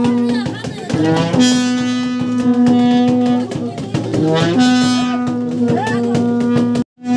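Long straight brass ceremonial horn blown in three long held notes, each steady for two to three seconds with a short break between, over a drum beating steadily. The sound cuts out briefly just before the end.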